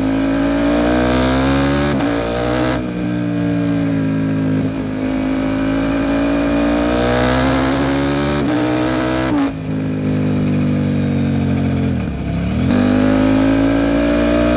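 KTM 790 Duke's parallel-twin engine through an Arrow Pro Race titanium exhaust, accelerating up through the gears with rising revs, with upshifts about three and nine and a half seconds in. Near the end the revs fall off briefly, then it accelerates again.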